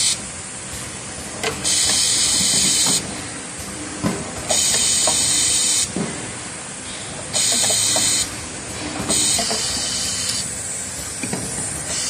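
Pneumatic pad printing machine cycling automatically: compressed air hisses in bursts of about a second, four times, roughly every three seconds. Short mechanical knocks and clicks from the moving pad and slides come between the bursts.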